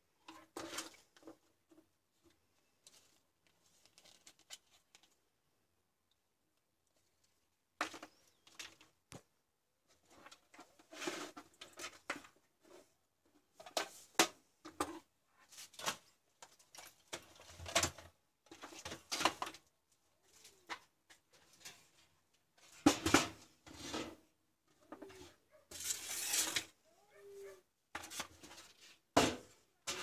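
Handling noise from computer parts and a steel PC case on a wooden table: irregular clicks, knocks and scrapes. These are sparse at first and come more often from about eight seconds in.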